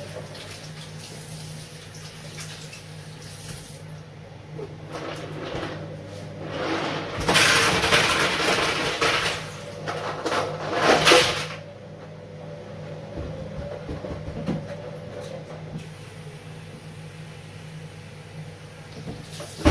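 Water rushing and sloshing as a plastic cooler box is rinsed out and emptied into a kitchen sink, in several bursts between about four and twelve seconds in, over a steady low hum.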